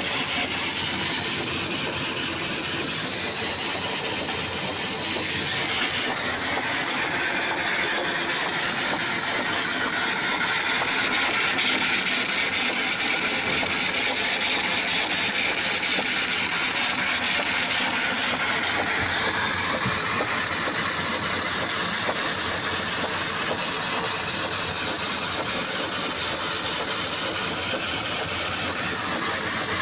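15 HP electric motor of a solar tubewell running steadily, driving the well pump through a flat belt and pulley.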